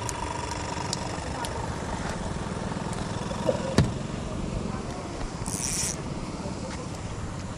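Steady low mechanical hum like a running motor, with a sharp click just before midway and a brief high hiss about three-quarters through.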